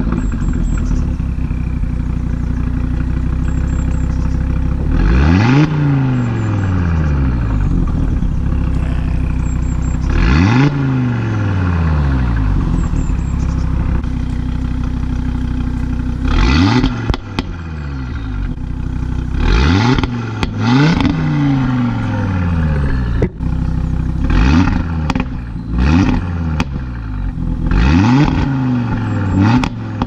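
Audi RS3's turbocharged five-cylinder engine, stationary, revved repeatedly through an upgraded sports exhaust, each blip rising sharply and falling back to idle. From about halfway, with the exhaust in Dynamic mode, the blips come closer together and are followed by crackles and pops.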